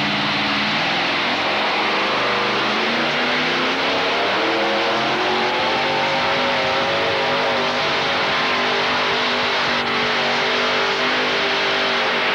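Modified pulling tractor's engines running hard under load down the track. The pitch climbs steadily over the first several seconds, then holds high.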